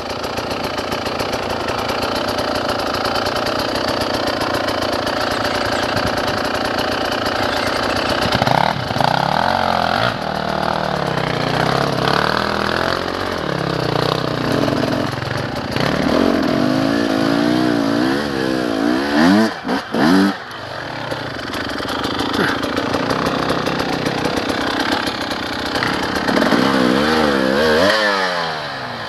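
Dirt bike engines running on a trail ride: a steady drone at first, then from about eight seconds in the engine revs up and down over and over. There are quick rising and falling revs a little past the middle and again near the end.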